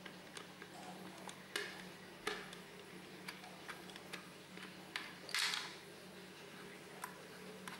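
Scattered light clicks and taps of a rubber bellows and plastic scroll-saw housing being handled by hand, with a brief louder rustle about five and a half seconds in. A faint steady hum runs underneath.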